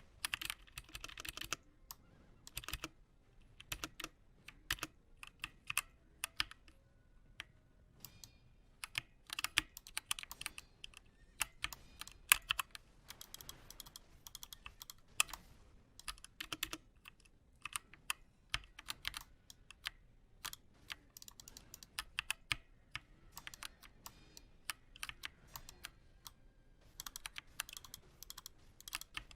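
Typing on a Redragon Draconic K530 mini mechanical keyboard: quick, irregular runs of sharp key clicks with short pauses between them.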